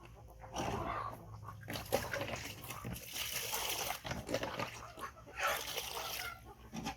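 Baby monkey calling in several noisy bursts.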